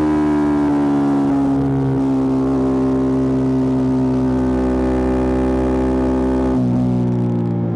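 Yamaha R125's single-cylinder four-stroke engine through a Black Widow aftermarket exhaust, pulling in gear at steady throttle with its note sinking slowly. About six and a half seconds in, the throttle is eased and the engine drops to a lower note.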